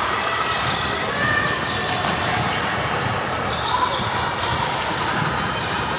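Basketball game sounds in a large echoing gym: a ball bouncing on the court amid a steady wash of players' and spectators' voices.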